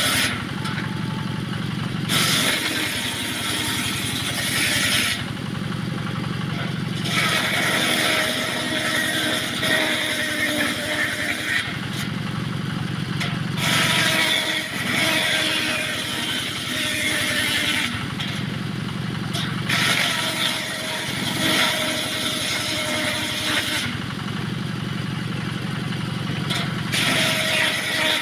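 Homemade circular sawmill ripping small wood offcuts into battens: the loud, high cutting noise of the blade in the wood comes and goes in about five passes, each a few seconds long, with the machine's engine humming steadily between cuts.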